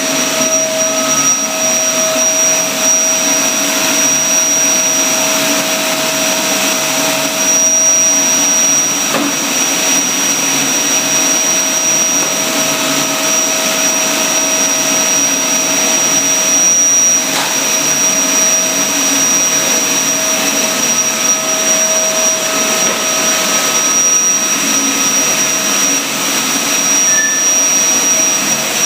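Vacuum cleaner running continuously: a steady high-pitched motor whine over a rushing hiss of air, with a lower hum that comes and goes.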